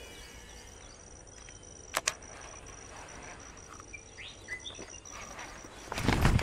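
Quiet outdoor ambience with a few short bird chirps and a thin steady high tone, broken by two sharp clicks about two seconds in. Near the end comes a loud, deep rushing thump.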